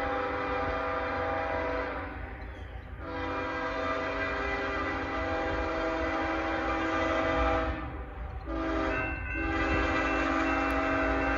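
Diesel locomotive air horn sounding a chord of several notes as the train approaches: two long blasts, a short one, then a long one, the standard grade-crossing warning. A low rumble of the train runs underneath.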